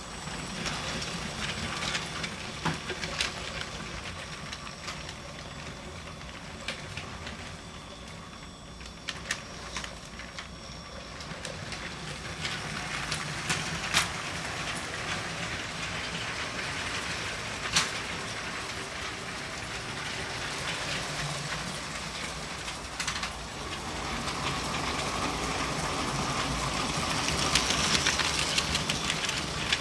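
Battery-powered LEGO train running on plastic LEGO track: the small electric train motor whirring and the wheels clicking and rattling over the track joints, getting louder over the last few seconds as the train comes close.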